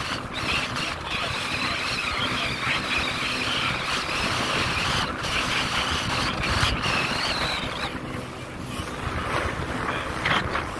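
Boat motor running steadily under way, with wind buffeting the microphone and water rushing past, easing a little near the end.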